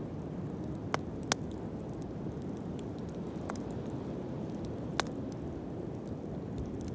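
Wood bonfire burning: a steady low rushing hiss with a few sharp crackling pops, about four, spread across the few seconds.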